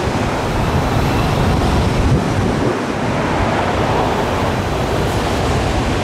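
Wind buffeting the microphone: a loud, steady rushing noise with an uneven rumble underneath.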